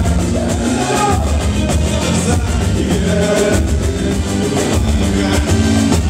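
Boi-bumbá toada sung live through the PA by a male singer over a percussion section of large drums, a steady driving beat.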